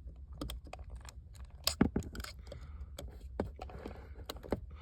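Irregular light metallic clicks and clinks of hand tools and loose parts being worked at a car's steering column, with a cluster of louder clicks about two seconds in.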